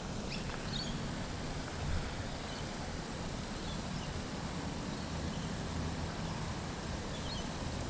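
Steady low outdoor background rumble with a few faint, short, high bird chirps scattered through it.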